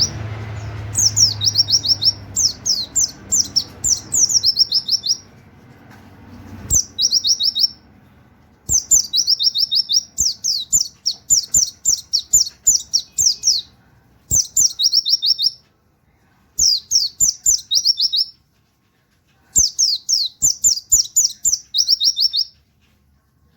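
A pleci (white-eye, Zosterops) sings in rapid-fire 'wit wit' style: fast runs of short, high, falling whistled notes with canary-like phrasing. They come in bursts of one to five seconds separated by brief pauses.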